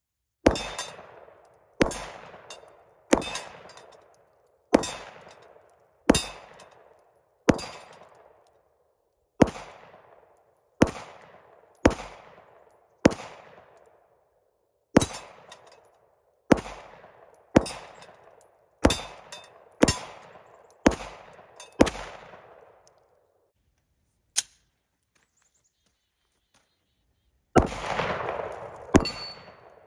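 A 9mm Glock 17 pistol fired in slow single shots, about eighteen at a steady pace of one every second or so, with steel targets clanging as they are hit. Firing stops for a few seconds, with one faint click in the pause, then starts again near the end.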